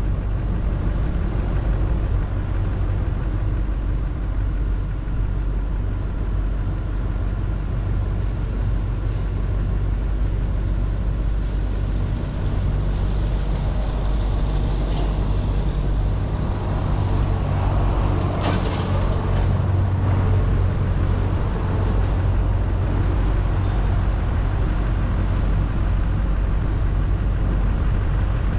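Vehicle driving slowly on a paved road, heard from a camera mounted on its hood: a steady low engine hum with tyre and road noise. A short stretch of louder hiss comes about two-thirds of the way through.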